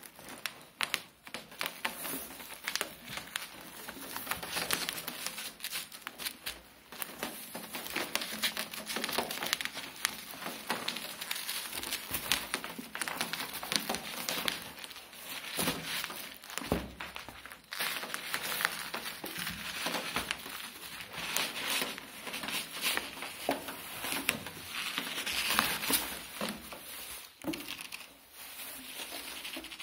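Plastic bubble wrap being handled and pulled away: a continuous crinkling and rustling, full of small crackles.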